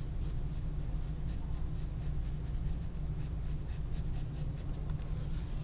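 Drawing strokes on paper: quick, short, repeated sketching strokes, a few a second.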